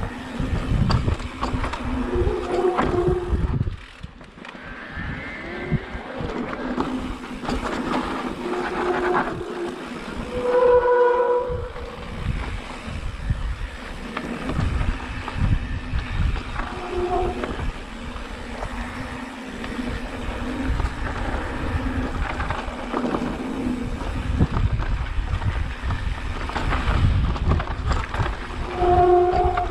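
Wind on the microphone and the rattle and crunch of a Specialized Turbo Levo electric mountain bike riding fast over a rough dirt trail, with short humming tones a few times.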